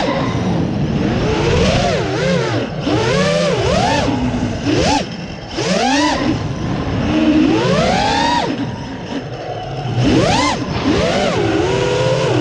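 Brushless motors of a 6-inch FPV freestyle quadcopter (Konasty 1739KV motors on 6-inch props) whining as heard from the drone's onboard camera. The pitch sweeps up and drops back many times in quick succession as the throttle is punched and cut, over steady wind rush.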